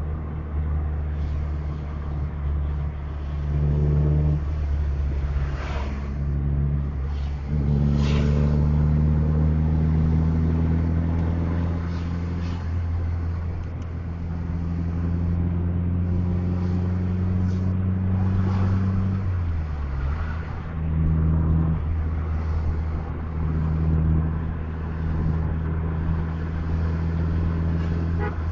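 Bus diesel engine running steadily under way, its pitch dipping and climbing back twice.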